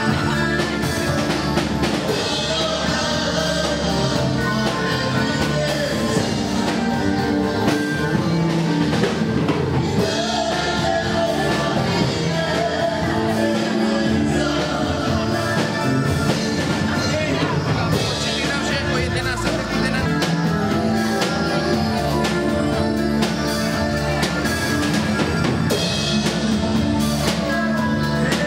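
Live dance band playing through PA speakers: a male singer over electric keyboard, electric guitar and a drum kit.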